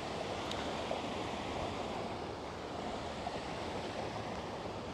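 Steady rush of flowing river water around the wader, with a faint tick about half a second in.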